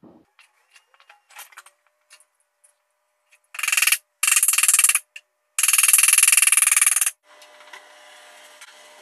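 Power drill running in three bursts, about half a second, one second and a second and a half long, driving screws into a wooden board being fixed over a window. Light clicks and taps come before it.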